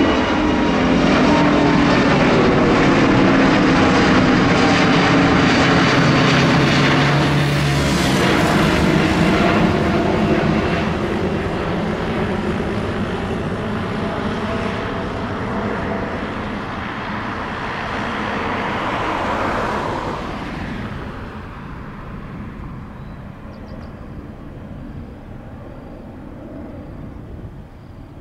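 Airliner engines at takeoff power as the plane departs, their tones falling in pitch as it passes. The roar holds for most of the stretch, then fades away after about twenty seconds.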